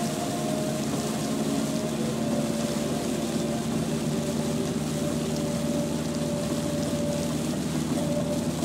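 Steady road and rain noise of a car driving in the rain, heard from inside, with faint radio music underneath.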